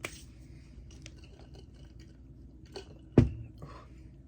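Mouth chewing a crunchy snack, with a sharp knock about three seconds in.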